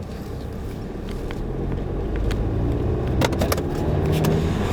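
Volkswagen Golf GTI Mk7's turbocharged 2.0-litre four-cylinder idling, heard from inside the cabin, its low hum growing louder through the second half. Sharp plastic clicks and knocks from a camera mount being handled come at scattered moments over it.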